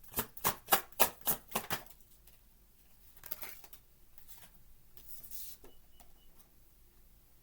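Deck of oracle cards being shuffled by hand: a quick run of sharp card slaps, about three a second, for the first two seconds, then a few softer shuffles as a card is drawn.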